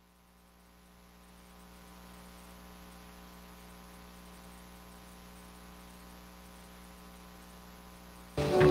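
Steady electrical mains hum from the church sound system, with many evenly spaced overtones, fading up over the first couple of seconds. A brief louder pitched sound cuts in near the end.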